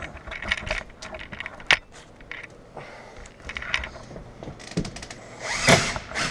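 Hand tools and screws being handled while fittings are fastened: scattered clicks and knocks, with a louder scrape about five and a half seconds in.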